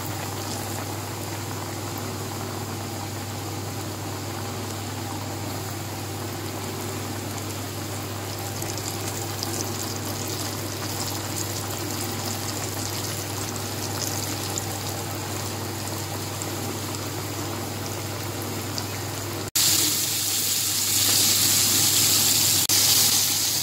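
Flour-coated chicken pieces deep-frying in hot oil, the oil bubbling and sizzling steadily over a low hum. Near the end it breaks off sharply and comes back louder and brighter.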